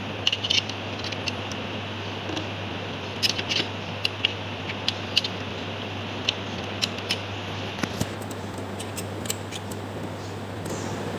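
Screwdriver working the terminal screws on a circuit breaker's auxiliary switch block: irregular small metallic clicks and ticks, some in quick clusters, over a steady low hum.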